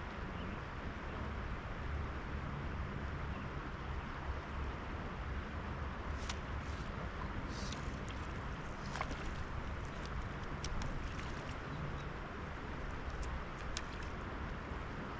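Steady rush of flowing river water, with a low rumble and a scattering of small clicks and ticks in the middle of the stretch.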